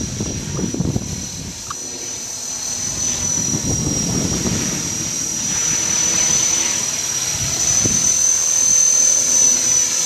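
Electric 450-size RC helicopter (Exi 450, a Trex 450 clone) in flight: a steady high-pitched whine from its motor and drive, rising slightly in pitch in the second half, over a low rushing noise that swells and fades.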